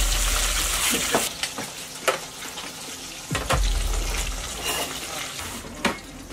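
Cooking at a gas stove: a sizzling hiss for about the first second, then stirring with several sharp knocks and clinks of metal utensils against steel pots and bowls.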